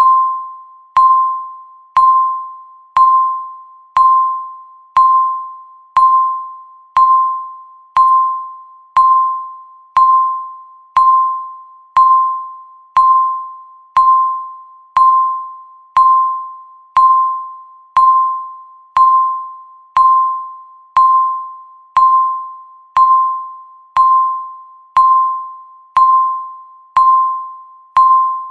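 Countdown timer's tick sound: a short electronic beep pitched near 1 kHz, struck once every second and dying away before the next, marking each second of the count.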